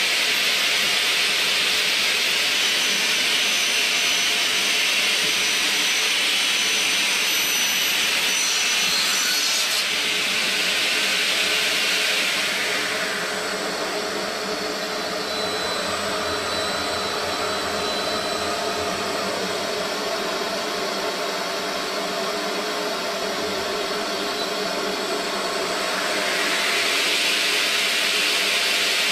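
Chencan 3023 CNC plate-making machining center running, its saw spindle cutting board sheets with a steady high whine and hiss. The hiss drops back for a stretch about twelve seconds in and comes up again near the end.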